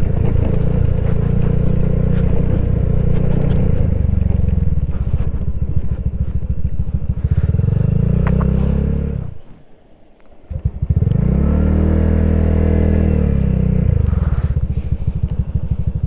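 Honda Giorno 160 scooter's single-cylinder engine running at low speed. About nine seconds in it drops away almost to nothing, and a second or so later it picks up again with a rising then settling pitch.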